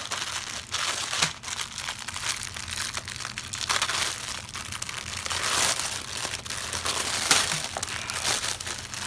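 Small plastic bags of diamond-painting drills crinkling as they are handled, with many sharp little crackles.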